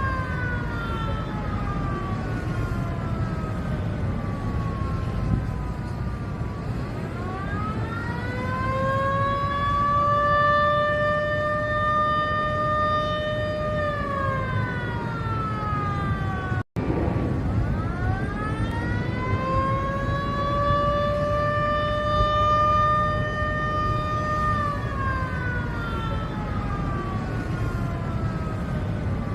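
Civil-defense warning siren wailing: it falls in pitch, then twice winds up, holds a steady tone for several seconds and winds down again, over a steady low background noise. The sound drops out for an instant about halfway through.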